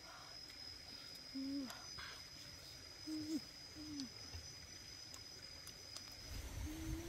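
A woman eating hums short closed-mouth 'mmm's of enjoyment between bites, three brief ones and a longer one near the end, each dipping in pitch at its close, with a few wet lip smacks of chewing. A steady high-pitched insect whine runs underneath and stops shortly before the end.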